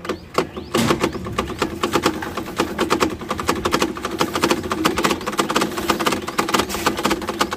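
A homemade bicycle 'silencer' (a plastic bottle strapped to the rear frame with a thin plastic card inside striking the spokes) gives a fast, steady rattling clatter as the rear wheel is spun by turning the pedal by hand. The clatter starts about a second in and runs evenly until just before the end.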